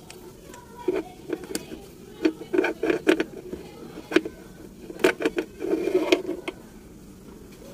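Irregular clicks and knocks, some in quick clusters, of hard objects being handled, with no engine running.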